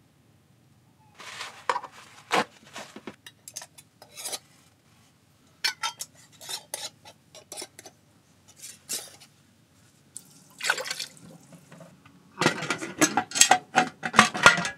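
Clinks and knocks of glass canning jars, metal jar lids and a ladle and canning funnel as hot jam is ladled into the jars and the jars are lidded. The knocks come singly and irregularly, then bunch into a dense clatter in the last two seconds.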